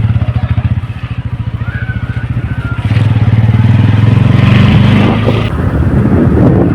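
Motorcycle engine running during a ride, a steady pulsing rumble that gets louder about three seconds in as it pulls harder.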